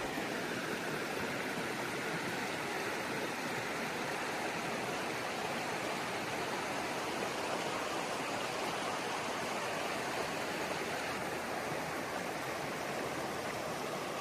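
River water rushing steadily: an even, unbroken water noise.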